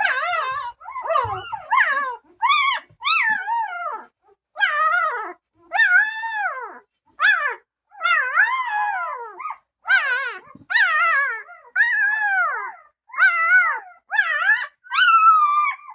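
Newborn Bernese Mountain Dog puppies crying: a string of short, high, wavering squeals, about one a second.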